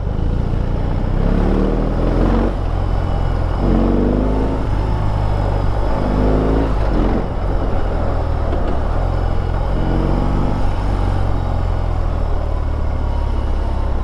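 BMW R18's 1.8-litre boxer twin running at low speed in stop-and-go traffic, its deep steady beat broken by about four short rises in revs as it pulls away.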